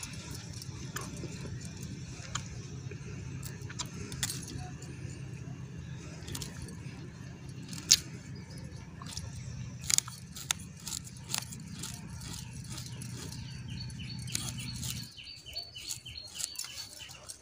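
Fish being cleaned and cut against an upright blade: irregular scraping and clicking, with bangles clinking on the wrists. A steady low hum runs underneath and stops about two seconds before the end, and a bird chirps near the end.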